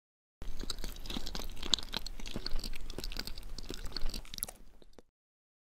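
Biting into and chewing a tortilla wrap filled with raw shredded cabbage and carrot: crisp crunching with many small crackles. It starts abruptly about half a second in and cuts off suddenly near the end.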